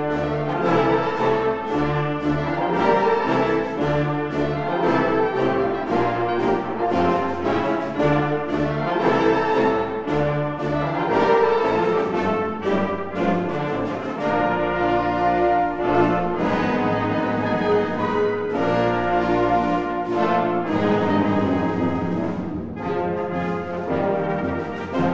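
Full concert wind band playing: brass and woodwinds together over a steady pulse of low bass notes and percussion.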